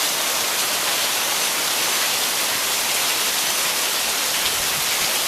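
Heavy downpour of rain, a steady even hiss of rain pouring down and drumming on surfaces.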